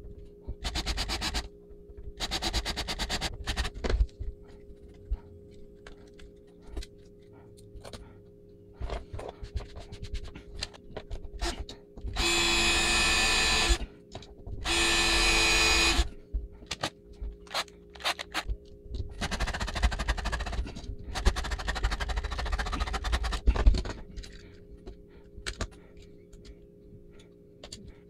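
Power drill drilling out the rivet posts that hold a diecast toy bus together. It runs in several short bursts, then in two steady runs of about a second and a half near the middle, then in two longer, rougher runs. Clicks and knocks of the parts being handled fall between the runs.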